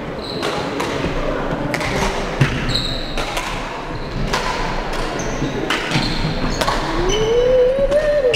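Badminton play on a wooden indoor court: sharp racket-on-shuttlecock hits and footfalls, with short high sneaker squeaks on the floor. There are people's voices in the background, and a drawn-out rising and falling voice near the end.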